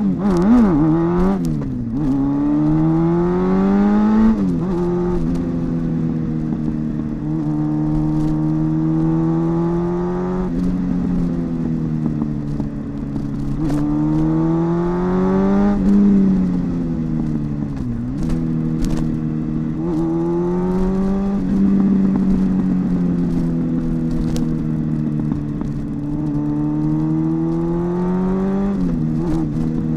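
2014 Jeep Cherokee's 3.2-litre V6 running after spark plug work, revved up and let back down about every three to six seconds, a test run to hear whether the cylinder 1 misfire (code P0301) is gone.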